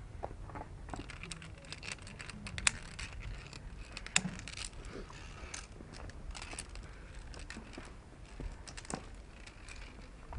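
Via ferrata climbing gear clinking: metal carabiners and lanyard hardware rattling and clicking against the steel cable and rock in irregular bursts, with two sharper clicks a few seconds in. Wind rumbles on the microphone underneath.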